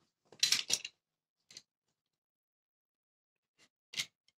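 Dry scraping and crackling of cut linoleum pieces being pried out and handled with a utility knife: a quick cluster of rasps about half a second in, a faint one after a second, and one sharp scrape near the end.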